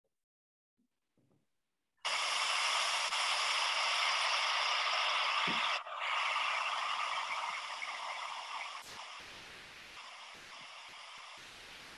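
Steady rustling, rushing noise from a film's outdoor field recording, starting suddenly after a couple of seconds of silence, dipping briefly a little before the middle and fading toward the end.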